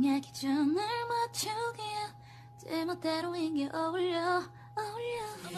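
A woman singing unaccompanied, a pop melody in short phrases with held notes and brief pauses, over a faint steady electrical hum.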